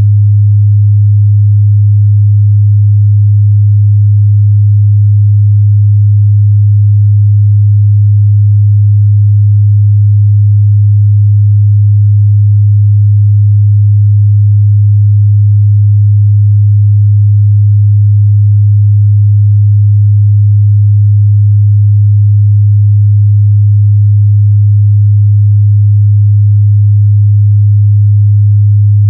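Steady 103 Hz sine-wave test tone, a pure low hum at constant loudness.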